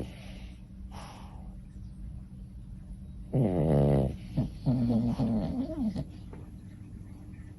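Small Pomeranian–Chihuahua dog snoring in its sleep: a faint breath about a second in, then a loud, pitched snore that falls in pitch about three seconds in, followed by a wavering, whiny snore.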